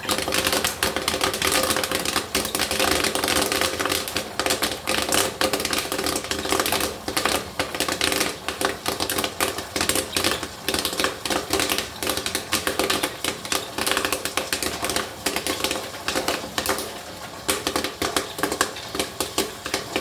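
Popcorn kernels popping rapidly in a homemade popcorn machine, a dense irregular patter of sharp pops over a steady hum from the machine; the popping thins out near the end.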